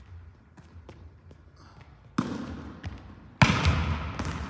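A volleyball struck hard by hand twice, sharp slaps that ring on in a large sports hall; the second, a little past halfway, is the louder.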